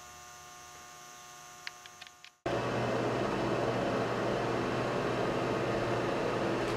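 Faint steady electrical hum with a few small clicks, then a cut about two and a half seconds in to a louder steady rushing noise with a low hum underneath, the sound of a running machine such as a fan.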